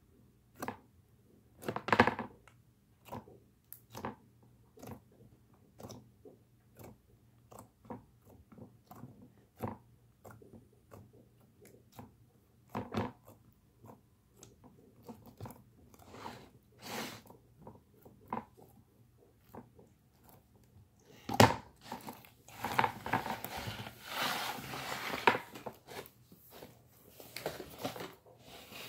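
Green slime squeezed and poked by hand in a plastic tub, giving a run of irregular wet clicks and pops about one or two a second. About two-thirds of the way through there is a sharp knock, then a denser stretch of crackling and squelching.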